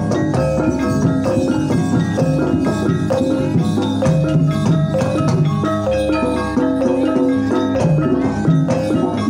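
Javanese gamelan ensemble playing a Banyumasan uyon-uyon piece: mallet-struck keyed instruments ring out a dense, steady run of notes over kendang hand drums.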